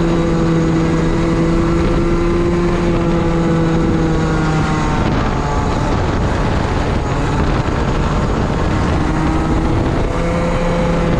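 Racing kart engine heard from the driver's seat, running at a steady high pitch, dropping in pitch about five seconds in as the kart slows for a corner, then climbing again as it accelerates out near the end. A rushing noise of air and track runs under it.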